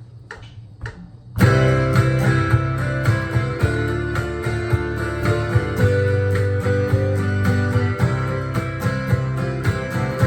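Guitar strummed with a pick, starting about a second and a half in after a few light taps, playing a steady chord pattern as an instrumental intro.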